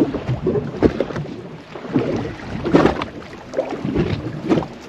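Small waves slapping irregularly against the hull of a small fishing boat at sea, with wind buffeting the microphone.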